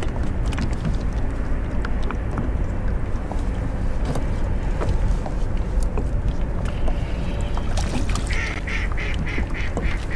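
Wind on the microphone and water lapping at a small boat's hull, with a duck quacking a quick run of about seven quacks near the end.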